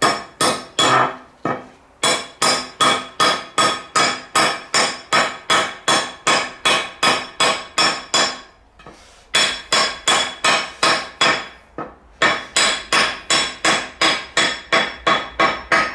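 Hammer blows driving a metal wedge into the top of an axe handle in the head's eye and peening it out, at about three strikes a second with a bright metallic ring. The runs stop briefly twice.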